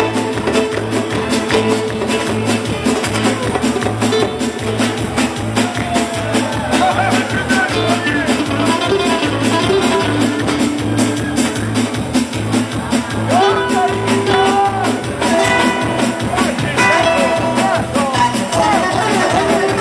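Live band dance music played through the hall's PA: guitar over a fast, steady beat, with a voice singing in places.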